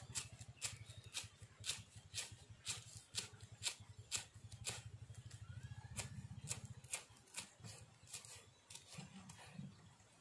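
Cleaver chopping green herbs on a thick wooden chopping block: sharp, even knocks at about two a second.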